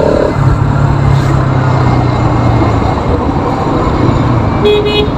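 Motorcycle riding at speed on a highway: steady rush of wind and road noise on the rider's microphone over the engine's low hum, with a short vehicle horn beep near the end.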